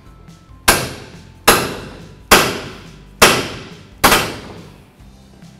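Hammer striking a pickle fork wedged between the steering knuckle and the lower ball joint: five sharp metal blows a little under a second apart, each ringing out. The blows drive the fork in to separate the ball joint stud from the knuckle.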